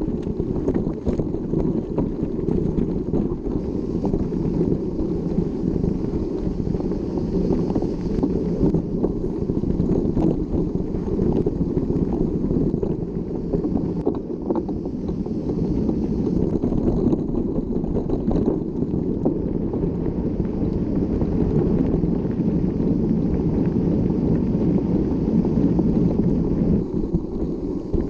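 Mountain bike riding over a rough dirt trail, heard through heavy wind buffeting on the microphone, with a steady run of small rattles and knocks from the bike over the ground.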